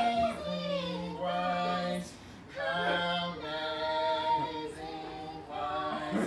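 A woman singing in long held notes that slide from one pitch to the next, over a low steady note underneath.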